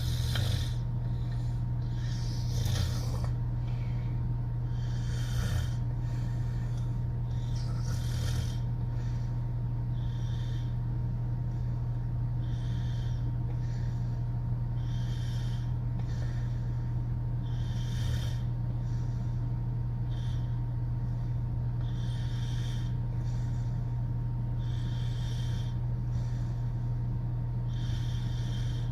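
A woman snoring through her open mouth in sleep: a hissing snore about every two and a half to three seconds, regular and even, about a dozen in all, over a steady low hum.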